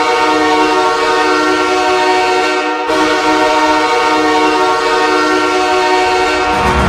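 Los Angeles Kings arena goal horn blowing: a loud, steady multi-tone blast with a short break about three seconds in before it sounds again. Near the end the goal song's music comes in.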